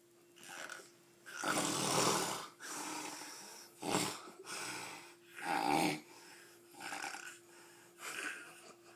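Heavy, irregular snoring from a sleeper: about seven noisy breaths of uneven length. The longest and loudest comes about a second and a half in, and a short sharp snort follows about four seconds in.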